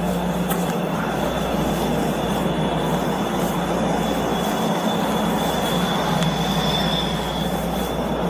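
Chicago 'L' Purple Line train running on the rails: a steady rumble of rail noise with a thin, steady high wheel squeal.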